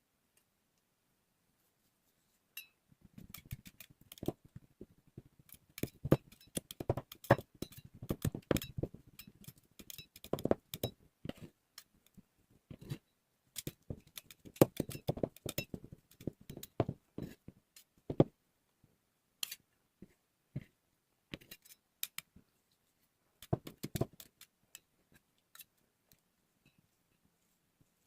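Close-up handling sounds: dense runs of sharp, irregular clicks and crackles that start about three seconds in, come in clusters with short pauses, and thin out in the last few seconds.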